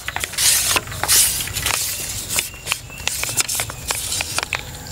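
Several hissy rustling swishes in the first second and a half, then a quick, irregular run of sharp clicks and crackles.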